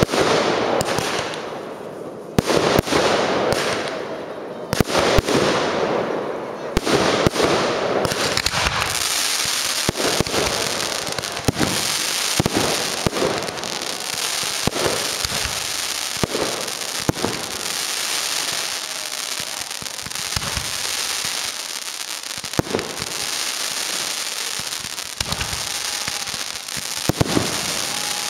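Aerial fireworks going off: a rapid run of sharp shell bursts for the first several seconds, then, about eight seconds in, a dense steady hiss sets in, broken by scattered bangs.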